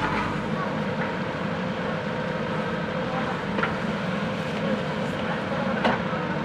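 JCB backhoe loader's diesel engine running steadily, with a sharp knock about three and a half seconds in and a louder one near the end.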